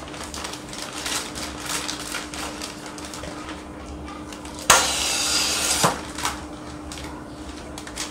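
DBF1000A continuous band sealer with nitrogen flushing running with a steady hum, while paper-and-foil snack bags rustle and clatter as they are handled. About halfway through, a loud hiss lasts a little over a second, the nitrogen jet blowing into a bag as it is fed into the sealer.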